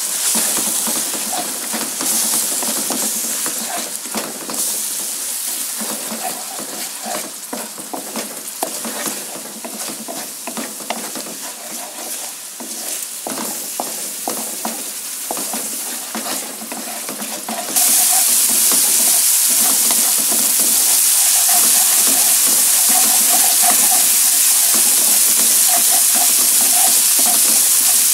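Blended chili paste, made with oil, sizzling in a nonstick wok while a wooden spatula stirs and scrapes through it. About 18 seconds in, the sizzle jumps suddenly to a louder, steady hiss.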